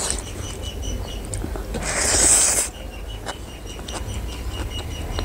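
Fingers mixing rice and curry on a metal plate, making scattered light clicks, under a rapid high chirping that repeats throughout. A short, loud rush of noise comes about two seconds in.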